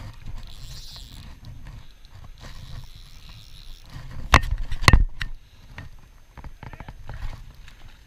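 Low, fluctuating rumble of wind and handling noise on a head-mounted camera's microphone, with two sharp knocks about half a second apart midway and a few lighter clicks after.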